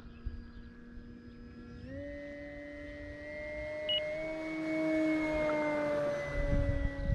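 Electric motor and propeller of an E-flite Carbon-Z Cessna 150T RC plane whining steadily at low throttle as it taxis on grass; the pitch steps up about two seconds in and the whine grows louder as the plane comes close. Low rumbling comes in near the end.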